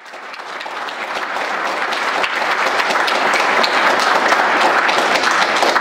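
Audience applauding, a dense patter of many hands clapping that builds over the first two or three seconds and then holds steady.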